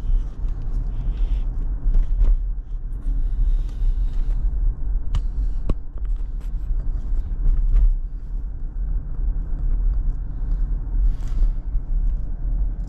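Steady low road rumble and tyre noise inside an electric car's cabin while driving, with a few light clicks scattered through it.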